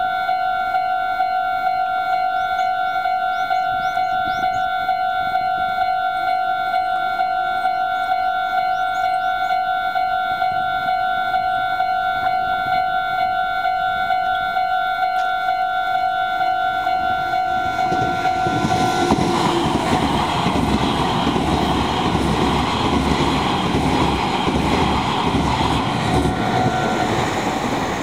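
Japanese level-crossing alarm ringing steadily in its electronic two-tone clang. About 18 s in, a Meitetsu 1800-series and 1200-series electric train comes through, and the rumble and rattle of its wheels on the rails rise to become the loudest sound. The alarm stops near the end, as the train clears the crossing.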